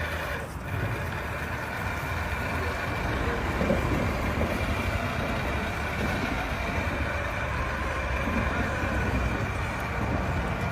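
A vehicle running steadily: a continuous low rumble with a faint steady whine above it.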